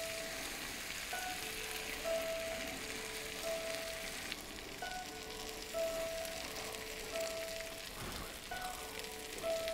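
Eggplant and ground pork sizzling in a cast-iron skillet, under soft background music with a slow, repeating two-note melody.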